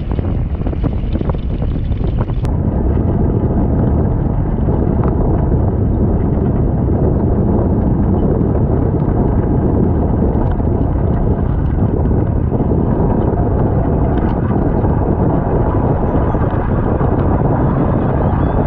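Wind buffeting the microphone of a land yacht moving over wet sand, a heavy, steady low rush. In the first two seconds or so, water spray splashes and crackles over it, then it settles to the steady rush.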